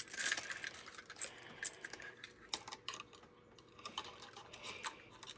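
Scattered light clicks and small rattles of hard objects being handled, coming in irregular clusters.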